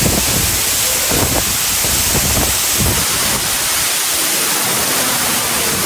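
Waterfall pouring close by: a loud, steady rush of falling water. Low rumbling surges run under it for the first three seconds or so, then ease.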